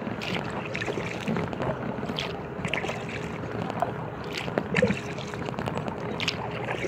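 Kayak paddle strokes in river water: the blades dipping and splashing, with water dripping and trickling off them in irregular spurts.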